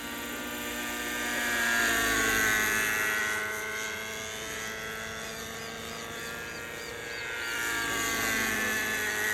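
Thunder Tiger Raptor 50 nitro RC helicopter in flight: its two-stroke glow engine and rotor whine rise and fall in pitch and loudness as it manoeuvres and passes, loudest about two seconds in and again near the end.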